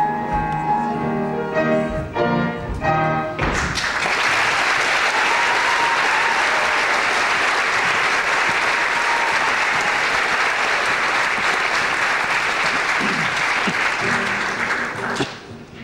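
A choir-and-piano number ends on its last chords, then an audience applauds loudly for about twelve seconds, dying away near the end.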